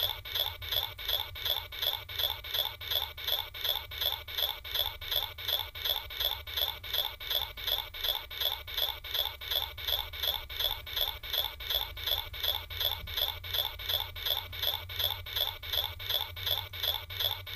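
A short scratchy, rasping sound repeated in an exact, even loop, about three to four strokes a second.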